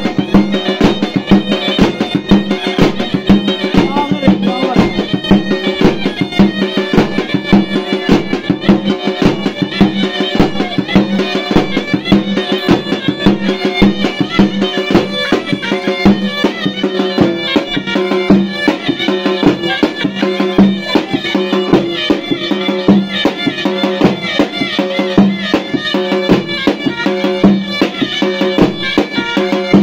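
Traditional folk music: a reedy wind-instrument melody over a steady low drone and a dense, fast drum beat.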